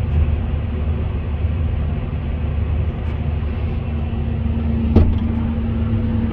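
Heavy diesel engine running steadily, deep and even, with a single sharp clank about five seconds in.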